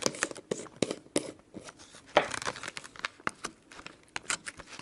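Slime being squeezed and worked in the hands, making irregular sticky clicks and crackling pops, with a louder crackle about two seconds in.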